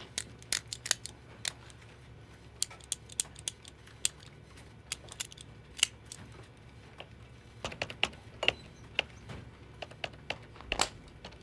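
Retractable pen clicked again and again in an uneven pattern of quick clicks and pauses, tapping out a Morse code message. A faint low hum runs underneath.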